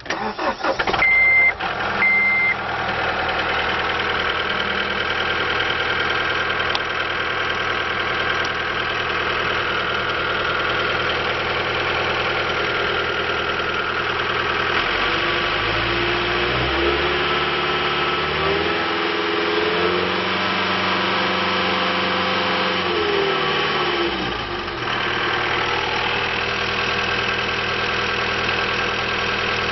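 John Deere 318D skid steer's diesel engine starting up, with two short high electronic beeps about a second apart, then idling steadily. About halfway through it is revved up in steps, held higher for several seconds, then drops back to idle.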